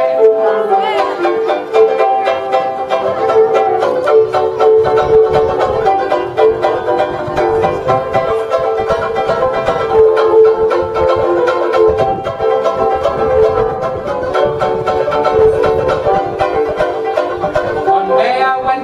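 Banjo ukulele strummed rapidly in an instrumental break of a 1940s comic song, over held notes of a backing accompaniment.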